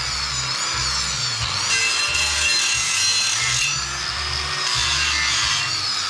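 A power tool working steel, a harsh hiss with a wavering pitch, over background music with a steady bass beat.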